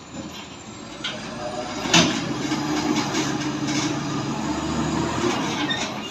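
Heavy-vehicle recovery work: a sharp metal bang about two seconds in, then a heavy diesel engine running steadily under load for a few seconds, with rattles and knocks from the machinery, fading near the end.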